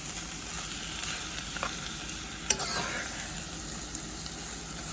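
Chopped broccoli, onions and carrots sizzling in butter in a pan, a steady hiss, with one sharp click about halfway through.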